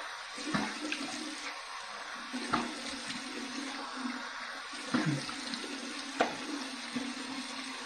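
Bathroom sink tap running steadily while cold water is splashed onto the face to rinse off after a shave, with a few short splashes over the flow.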